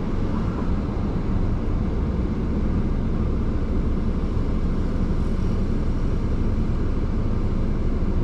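Toyota Yaris engine idling steadily with the air conditioning just switched on, the idle raised to a little over 800 rpm by the A/C load. The owner credits the healthy idle-up to the freshly cleaned electrical connectors.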